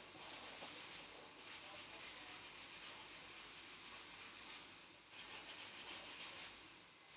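Quick back-and-forth scuffing strokes of a small hand-held pad rubbed over a painted cabinet door, in runs with short breaks, fading out near the end.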